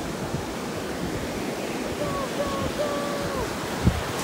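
Ocean surf washing steadily, with wind buffeting the microphone and one sharp thump near the end.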